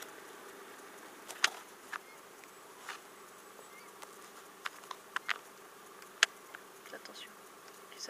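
Faint steady insect buzzing, with a few sharp clicks scattered through it.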